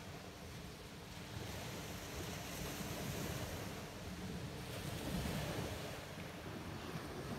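Small waves breaking and washing up on a sandy beach, the surf swelling and easing.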